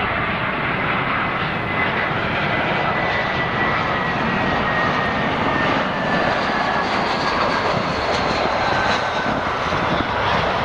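Airbus A320 jet engines on landing approach and touchdown: a steady loud rush with a thin high whine that slowly drops in pitch as the airliner passes.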